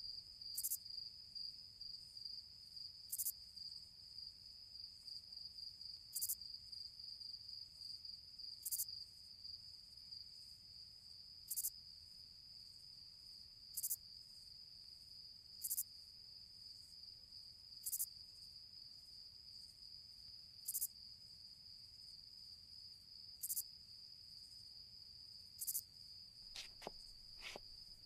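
Crickets trilling, a steady high pulsing note, with a short hissy chirp repeating every two to three seconds. Two quick falling sweeps come near the end.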